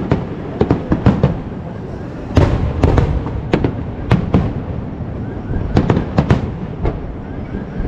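Aerial fireworks shells bursting in quick, irregular succession: a string of sharp bangs over a low rumble.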